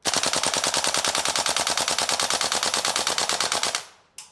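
Tokyo Marui AKM gas blowback airsoft rifle firing one long full-auto burst, a rapid, even train of shots that stops suddenly when the magazine runs out near the end. A single click follows.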